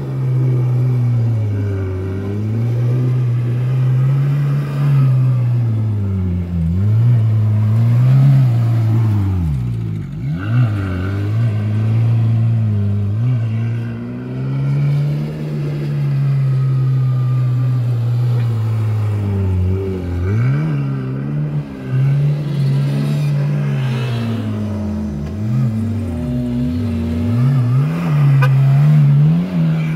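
Off-road car's engine revving and easing off again and again, its pitch swinging up and down every second or two, with a few sharp drops in revs followed by quick climbs.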